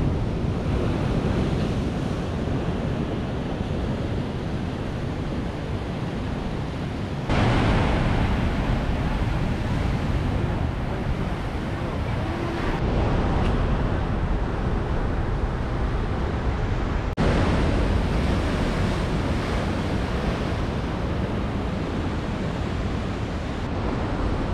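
Ocean surf washing over a coastal rock shelf, with wind rumbling on the microphone. The sound is a steady rush with no distinct tones, and it jumps louder abruptly twice.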